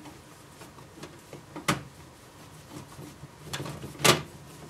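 Screwdriver working a screw into the metal rear panel of a Sony CDP-CX350 CD player: scattered small ticks and scrapes, with two sharper knocks, one about a second and a half in and a louder one near the end.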